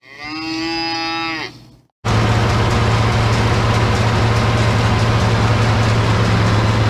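A single cow moo, one long call, then after a brief gap a steady heavy machine noise with a strong low hum, from about two seconds on: an International 1256 tractor's turbocharged six-cylinder diesel working under load, running a New Holland 790 forage chopper.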